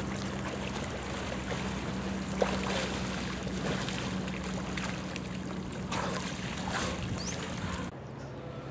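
Water splashing and churning around swimmers being towed through a pool by dolphins, with a few louder splashes, over a steady low hum.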